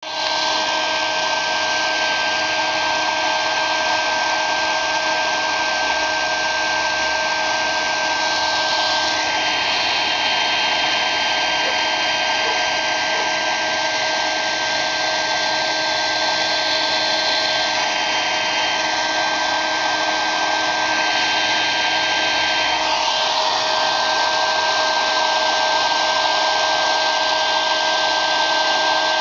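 Hair dryer running steadily, a constant whine over its rushing airflow. The rush of air changes tone twice, about a third of the way in and again near two-thirds.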